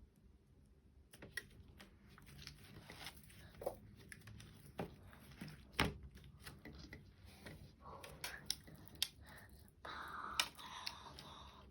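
Faint, soft handling of slime: squeezing, stretching and pulling it apart, with scattered small clicks and crinkling, and a short busier patch about ten seconds in.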